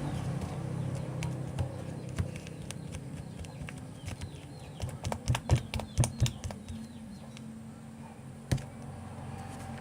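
Slime being worked by hand, giving a run of sharp clicks and pops that cluster about five to six and a half seconds in, with one more near the end.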